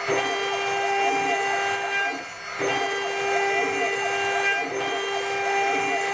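Desktop CNC router's high-speed spindle whining steadily at about 24,000 rpm while milling D16 duralumin, with wavering fainter tones over it. The sound dips briefly about two seconds in, then comes back.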